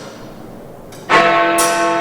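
Big Ben's clockwork ticks, then about a second in a chime bell in the tower is struck and rings on in several steady tones. Another sharp tick of the clock mechanism sounds over the ringing.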